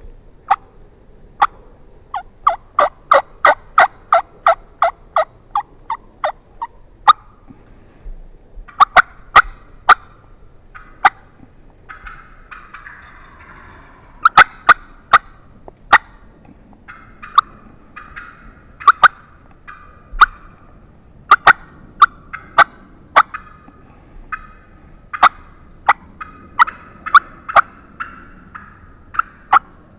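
Turkey call worked close by in runs of loud, sharp yelps, several series of notes a few per second with short pauses between, imitating a hen to draw a response from a gobbler.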